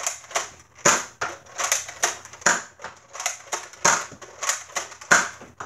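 Toy foam-dart blaster firing rapidly, a string of sharp snapping shots at about three a second, some louder than others.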